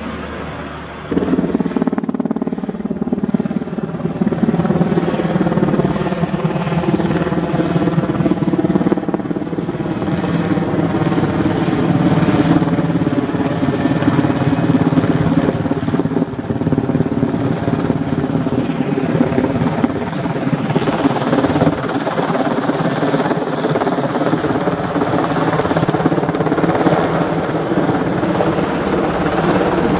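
Black Hawk helicopter flying overhead carrying a slung load, its rotors and twin turbines running steadily and loudly. It jumps louder about a second in.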